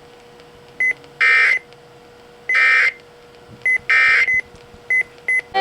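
Emergency Alert System digital data tones: three short, buzzy bursts of the SAME code about a second apart, the end-of-message signal that closes an alert broadcast, with brief high beeps in between.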